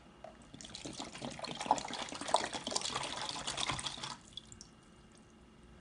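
Water poured from a plastic water bottle into a shallow plastic tub, splashing irregularly for about three and a half seconds and stopping as the bottle empties.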